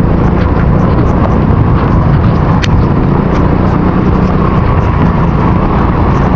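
Motorcycle ride in heavy rain picked up on a bare action camera's built-in microphone: a loud, steady rush of wind and rain noise over the engine's low drone, with scattered taps of raindrops on the camera, one sharper tap about two and a half seconds in.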